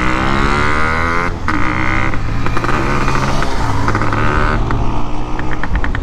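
Yamaha RX100's two-stroke single-cylinder engine running under way. Its revs climb over the first second or so, break off briefly about a second and a half in, pick up again and drop to a lower, steadier pitch past the middle, over a steady rush of riding noise.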